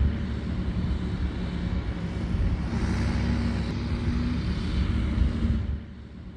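Heavy tipper truck's diesel engine running with a steady low rumble while it drives along spreading gravel. The sound drops away sharply near the end.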